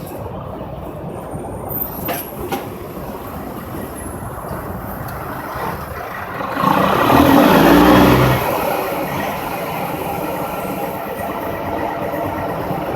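Steady interstate traffic with heavy trucks. One truck passes louder about halfway through, swelling and fading within about two seconds.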